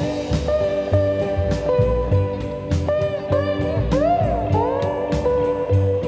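Background music: a bluesy guitar playing sustained notes with bent, sliding pitches over a steady drum beat.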